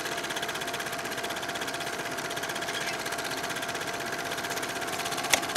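A rapid, even mechanical clatter over a steady hum, with a sharp click near the end.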